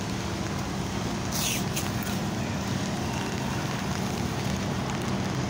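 Steady rumble and hiss of road traffic on a rain-wet street, with one short hiss about a second and a half in.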